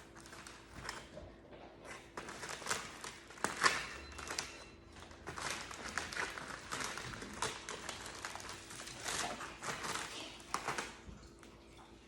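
Hands handling crescent-roll dough and Oreos on a cutting board: irregular soft rustling with small taps and crinkles, over a faint steady hum.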